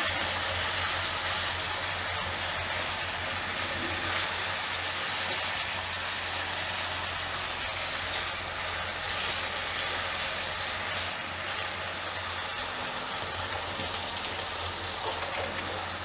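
Sliced potato pieces frying in hot oil in a nonstick kadai, a steady sizzle that eases off slightly towards the end.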